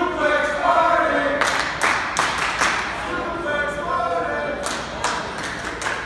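Wrestling crowd chanting together and clapping, with several sharp claps or thuds standing out in the middle and near the end.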